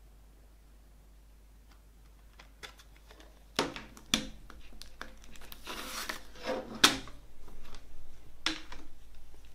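Plastic CD jewel case being opened and handled: after a quiet start, several sharp plastic clicks and snaps, with a short stretch of scraping, rustling plastic about six seconds in.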